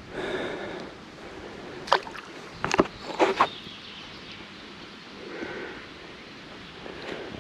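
Handling sounds aboard a small rowing boat: a few sharp knocks and clicks, clustered about two to three and a half seconds in, over a low outdoor background.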